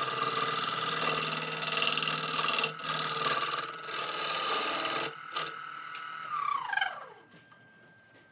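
Electric power tool running at full speed, then switched off about five seconds in, its motor whine falling in pitch as it spins down to a stop.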